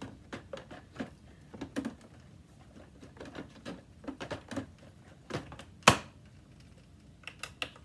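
Plastic parts of a Hoover WindTunnel bagless upright vacuum being handled: scattered light clicks and knocks, one loud sharp knock about six seconds in, and a quick run of clicks near the end.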